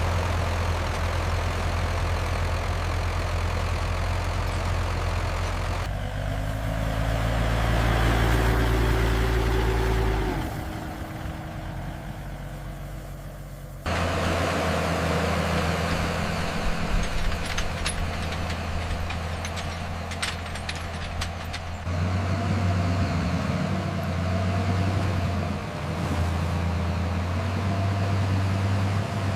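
Tractor engines running at a steady speed. The engine sound changes abruptly several times as one engine gives way to another.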